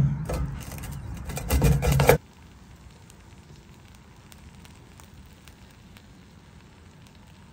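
Pizza cutter crunching through the crisp crust of a pan pizza in a cast iron skillet: a crackly, crunchy cutting noise for about two seconds that stops abruptly. After it only a faint steady hiss with a few light ticks remains.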